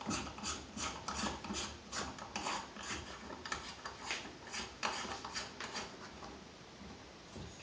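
Aluminium AR-15 buffer tube being screwed by hand into the lower receiver's threads. The metal threads scrape in short repeated strokes, about two or three a second, that fade out near the end.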